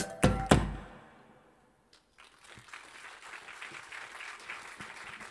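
A live band's last two accented hits on drums and guitar ring out and fade within about a second. After a brief silence, audience applause starts about two seconds in and continues steadily.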